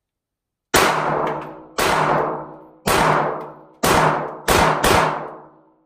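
Six 9mm pistol shots from a Glock 43X, each followed by a long echo that dies away over about a second. The first four come roughly a second apart, and the last two close together.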